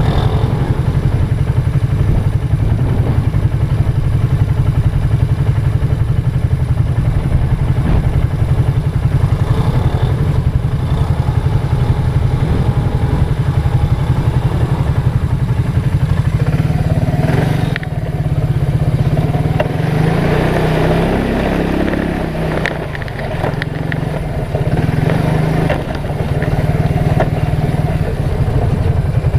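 ATV engine running steadily under way. About two-thirds of the way through, the engine note dips and rises as the throttle changes, then settles again.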